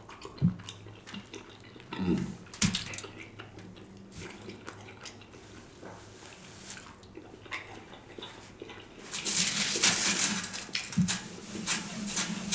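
Close-up eating sounds: wet chewing and lip-smacking on smoked turkey leg meat, with scattered clicks and small thumps. About nine seconds in the chewing gets louder and denser.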